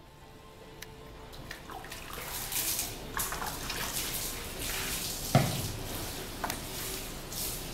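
Water poured from a bowl and swept by hand over a large wet wooden papermaking frame, splashing and running off as the frame is rinsed. A single knock about five seconds in.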